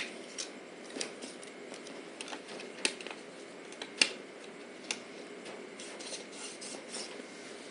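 Light clicks and rubbing from a toddler's hands on a plastic toy cash register and toy pieces. Scattered sharp clicks come at irregular moments, the loudest about three and four seconds in, over soft rustling.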